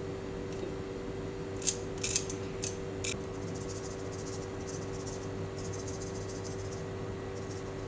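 A handful of light, sharp clicks and taps, chopsticks knocking against a stainless mesh strainer and glass dish as shredded cabbage is scraped off, followed by a faint scratchy rustle; a steady low hum underneath.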